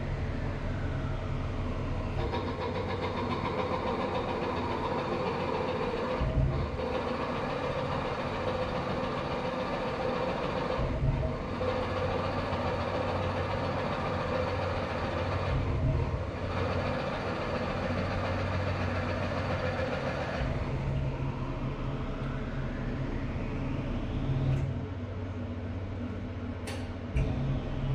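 Tormach CNC mill's spindle running as a drill bores into a block of wood: a steady machine whine that breaks briefly three times, about five seconds apart. Its pitch glides down in the first two seconds and rises again near the end.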